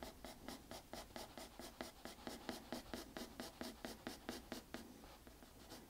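Graphite pencil scratching on drawing paper in quick, even hatching strokes, about five or six a second, faint.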